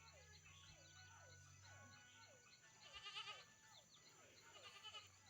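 Faint animal calls repeating about three times a second, each a short falling note, with a brief high chirping trill about three seconds in.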